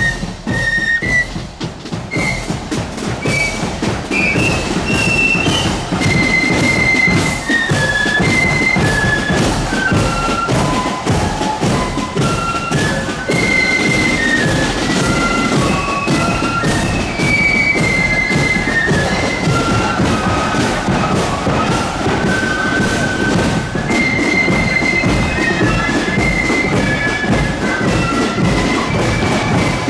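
Marching flute band playing a tune: a high melody on flutes over steady bass drum and side drum beats.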